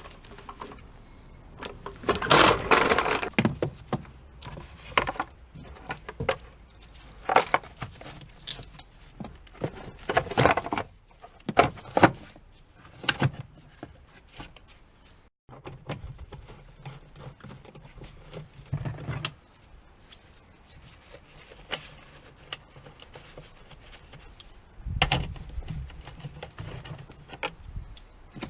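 Irregular knocks, clinks and rattles of metal tools and parts being handled, with a longer rattling stretch about two seconds in and again around ten seconds. The sound drops out for a moment about halfway through.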